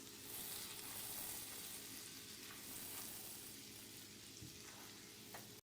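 Garlic sizzling in melted butter in a frying pan, a faint steady hiss that cuts off abruptly near the end.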